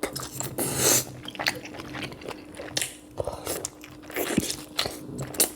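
Close-up eating sounds of someone biting and chewing sausage and sweet potato from a buttery boil: irregular wet smacks and sharp mouth clicks.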